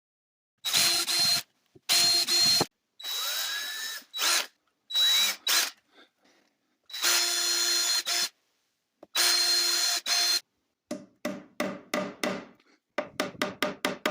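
Electric drill motor whirring in about seven short bursts of roughly a second each, switched on and off repeatedly. Near the end comes a run of short, evenly spaced knocks that get quicker.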